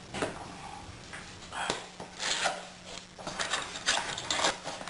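Knife cutting open the new hard drive's packaging and the packaging being handled: irregular scraping and rustling, busier in the second half.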